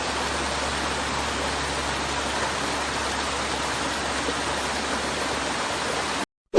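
Steady rushing water noise, even and unbroken, which cuts off suddenly near the end.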